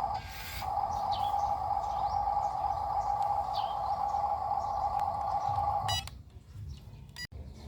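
A steady, even beep-like tone holds for about six seconds, broken briefly near the start, then cuts off suddenly, followed by a couple of clicks. Birds chirp faintly in the background.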